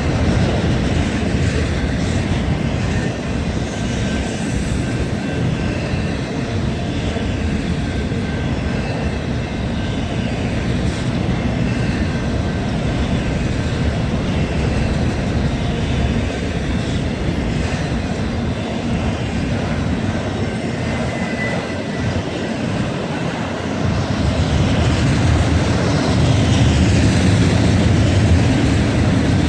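Freight train cars rolling past on the rails: a steady rumble of wheels on track with faint high wheel squeal, growing louder and heavier near the end.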